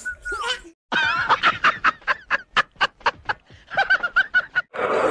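A man laughing hard in quick, evenly spaced bursts of about four a second, pausing briefly and then laughing a few more times.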